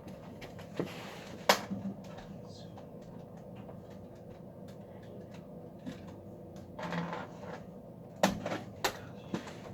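Scattered light clicks and knocks of handling and movement, with a sharper knock about a second and a half in and a few more close together near the end.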